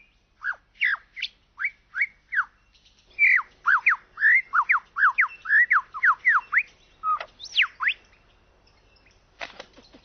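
Superb lyrebird singing: short sweeping whistled notes, spaced out at first, then a quick run of sweeping notes and two longer notes, with a few sharp clicks near the end.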